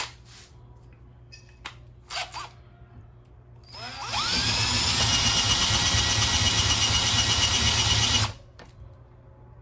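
Cordless drill spinning a drill bit against the edge of a drilled hole in a metal rod, deburring it. After a few light clicks, the motor spins up with a rising whine about four seconds in, runs steadily for about four seconds, and stops suddenly.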